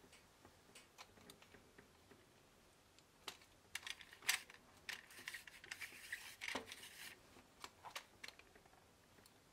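Quiet, scattered clicks and rattles of Lego Technic plastic parts being handled and turned, with a short stretch of continuous scraping about halfway through.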